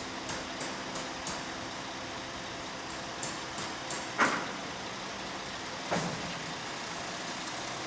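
Truck engine running steadily while its hydraulic lifting gear lowers an empty mortar silo, with a series of light metallic ticks and two loud clunks about four and six seconds in.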